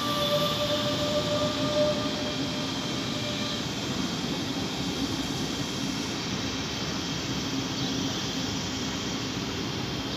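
DB class 425 electric multiple unit rolling past along the platform with a steady rumble and rail noise. A steady electric whine from its drive is heard at first and fades out about two seconds in.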